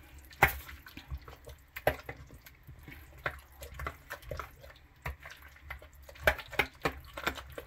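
Wet squelching and irregular clicking as a thick, moist pumpkin and oatmeal dough is mashed and stirred in a glass mixing bowl.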